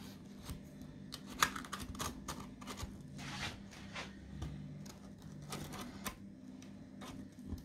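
Faint, irregular light taps and clicks as a freshly baked banana bread is handled in its metal loaf tin, fingers pressing the crust and the tin shifting on the table.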